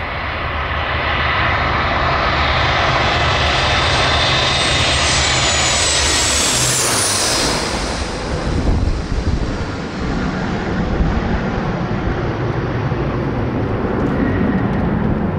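Four-engined BAe 146 jet passing on landing. Engine noise builds to a peak with a high whine that falls in pitch about seven seconds in, then a lower rumble as it moves away.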